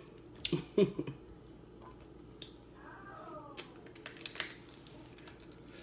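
Snow crab legs being picked apart and eaten close to the microphone: scattered sharp clicks and cracks of shell, with soft squishy mouth sounds. The clicks come in a cluster about a second in and again through the middle.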